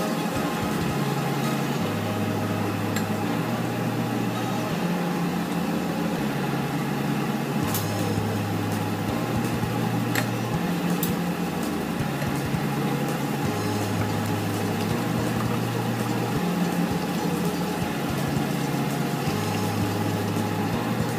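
Hot oil sizzling steadily in a frying pan as battered squid rings deep-fry, with a few sharp clicks near the middle.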